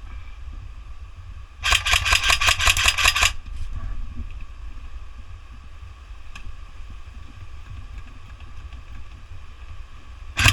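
Airsoft gun firing a full-auto burst of rapid, evenly spaced shots, about ten a second for a second and a half. A single sharp shot or click comes near the end.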